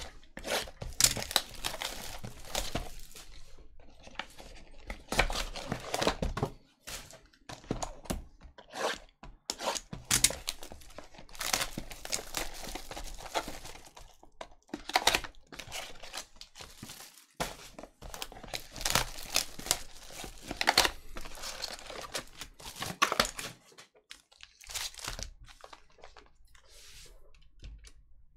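Clear plastic shrink-wrap crinkling and tearing as it is stripped off a trading-card box, then the box torn open and its packs handled: irregular crackles and rips, softer near the end.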